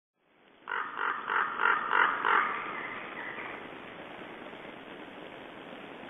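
Common raven calling: a run of six harsh croaks at about three a second, then stopping, leaving a steady hiss.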